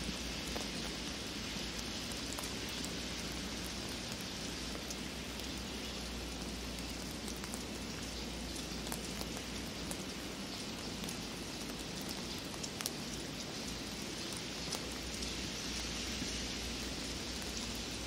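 Snow falling steadily through pine branches: an even hiss with a few faint ticks scattered through it.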